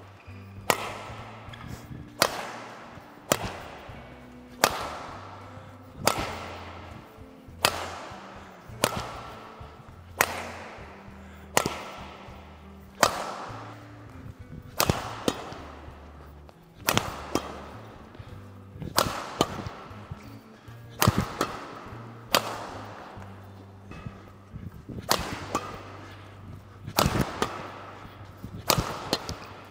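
Badminton rackets striking a shuttlecock back and forth in a steady rally, sharp cracks about once a second, echoing in a large hall. One of the rackets is a Victor Thruster Ryuga II Pro. Background music plays underneath.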